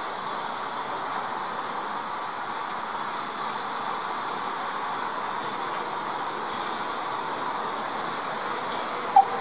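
Steady hiss of steam from standing and slowly moving steam locomotives, with no beat of exhaust. A single brief, sharp peep sounds near the end.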